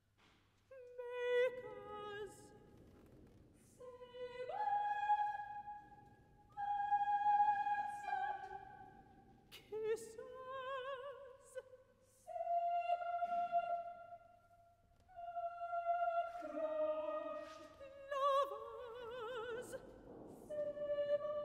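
A solo soprano and a chamber choir singing short, separate phrases with vibrato in a contemporary choral-orchestral work, the choir's lines on single words like 'sabred' and 'stabbed'.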